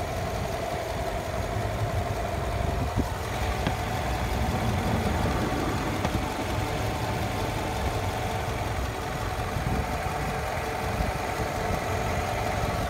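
A car engine idling steadily, a constant hum and low rumble.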